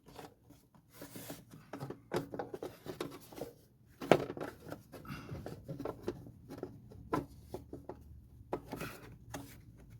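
Irregular clicks, knocks and rubbing of a part being handled and lined up on a lawnmower, with one sharper knock about four seconds in.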